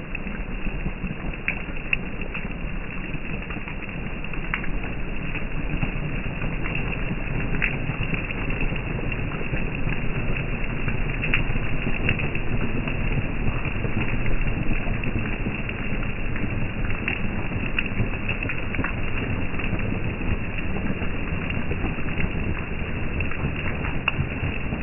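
Rain falling steadily: a continuous hiss of rain with scattered sharper drop ticks.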